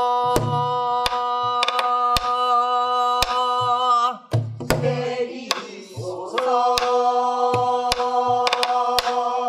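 Singing in Korean folk-song style, with long held notes, over strokes of a buk barrel drum played with a stick. The first held note breaks off about four seconds in, a lower sliding phrase follows, and a second long note is held to the end.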